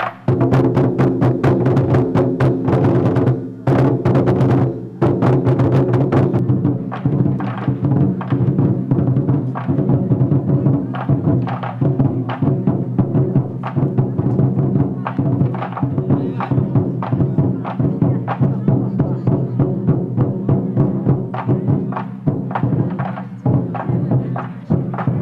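A troupe beating large Chinese barrel drums in a fast, unbroken rhythm, each stroke ringing on. About six seconds in the strokes turn duller.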